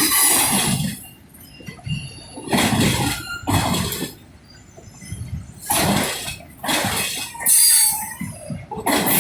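Cars of a Norfolk Southern freight train rolling past, the wheel-and-rail noise coming and going in loud surges every second or two.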